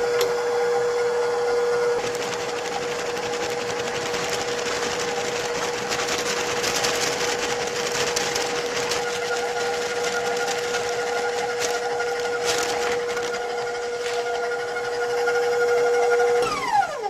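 Electric stand mixer running steadily with its paddle attachment creaming butter, a steady motor whine; just before the end it is switched off and the whine falls in pitch as the motor spins down.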